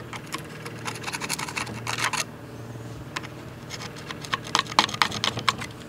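A metal tool scraping and prying old wood and rust out of the eye of an 1800s ball peen hammer head held in a bench vise, in two runs of quick scratches and clicks.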